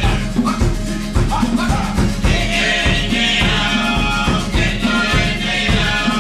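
Live Cook Islands dance music: voices singing together over a steady, quick drum beat.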